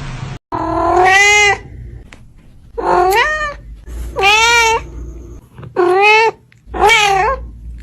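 A cat meowing five times in a row, each meow under a second long, rising and then falling in pitch.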